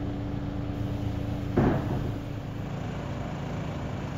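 Crane truck's engine running with a steady hum; about a second and a half in comes a single loud clank, the higher part of the hum stops, and the engine runs on more quietly.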